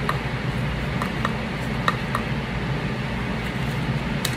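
A few light clicks and taps from hands handling card-making supplies, a glue dot roll and the card, over a steady background hum.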